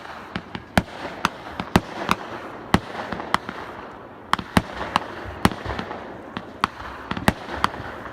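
Fireworks going off: an irregular string of sharp bangs, two or three a second, over a steady rumble of further bursts.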